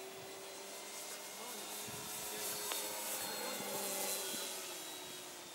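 Overlander Extra 260 radio-controlled model plane flying overhead, its motor and propeller making a steady drone that grows a little louder and then fades as it passes.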